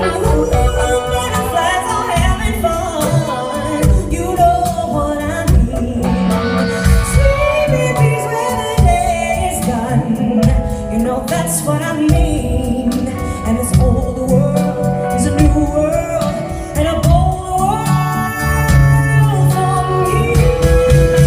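Live band music: a singer's voice gliding over bass and drums.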